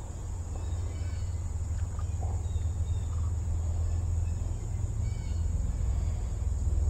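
Creek-side ambience: a low rumble on the microphone, growing slightly louder, under a steady high-pitched insect drone, with a few faint short chirps.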